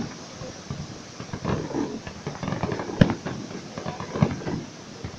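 Fireworks going off: a scatter of irregular pops and thumps, with one sharp, loud bang about three seconds in.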